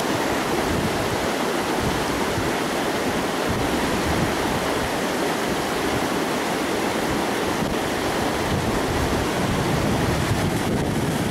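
Steady rush of the fast-flowing Copper River running over rocks.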